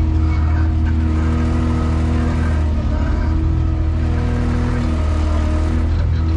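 Diesel engine of a paving-stone laying machine running steadily, heard from inside its cab.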